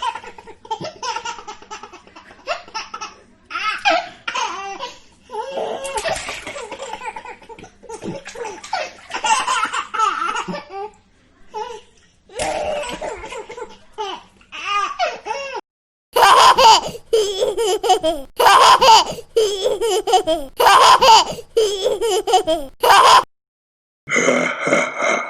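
A string of laughter sound-effect clips: varied bouts of people laughing in short broken pulses. About two-thirds through comes a louder run of hearty laugh bursts, then a brief break and another laugh.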